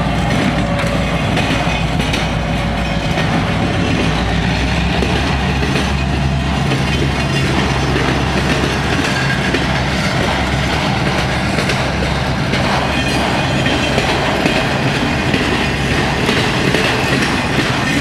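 Freight train of enclosed autorack cars rolling past, a steady rumble and clatter of steel wheels on the rails.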